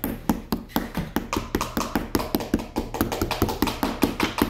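Play-Doh rubbed back and forth on a cheese grater: quick, even scraping strokes, about five a second.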